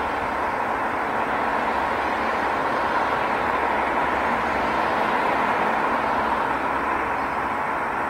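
Steady rush of road traffic, swelling slightly around the middle and easing a little near the end, with a faint steady tone on top.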